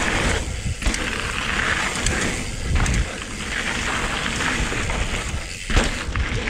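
Wind buffeting the microphone and tyres rolling hard over rocky dirt as a mountain bike descends at speed, an uneven rushing rumble that eases briefly twice.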